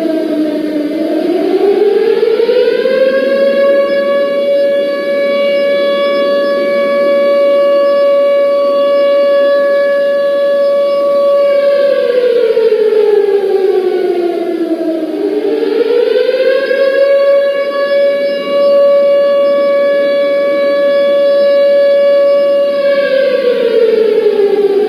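Civil defence siren sounding the 10 November remembrance signal in long wails: the pitch rises, holds steady for about eight seconds, falls away, then rises and holds again before falling near the end.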